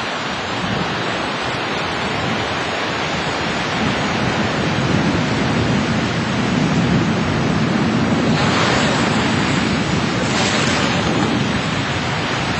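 Surf washing onto the beach, with wind on the microphone. The sea swells louder a few seconds in, and two louder hissing washes of breaking water follow near the end.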